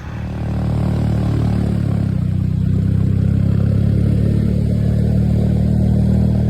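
Motorcycle engine running under steady load as the bike climbs a hill, heard close up from the bike. It grows louder over the first second, then holds an even drone.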